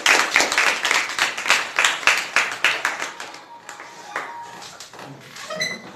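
A small group clapping, dense for about three seconds, then thinning out and stopping about four seconds in.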